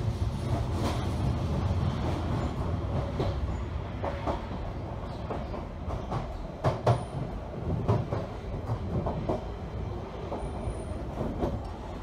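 Interior of a London Underground Jubilee Line 1996 Stock train pulling away and gathering speed: a steady low running rumble, with a few sharp knocks from the wheels and carriage about seven and eight seconds in.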